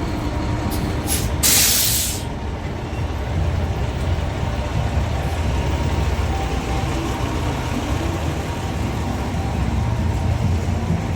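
Large bus engine idling with a low rumble, with a sharp burst of air-brake hiss about one and a half seconds in, just after two short spurts.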